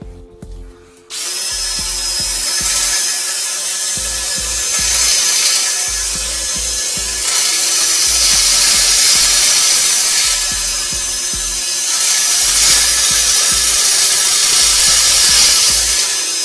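A cordless drill spins a flexible-shaft drain-cleaning cable down a clogged toilet, where the blockage is lodged in the toilet itself. It starts about a second in and runs loud and steady.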